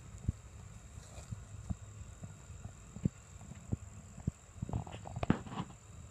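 Footsteps on grass, dull thuds at a walking pace, with a quicker cluster of thumps and rustling near the end. A steady high-pitched hum runs underneath.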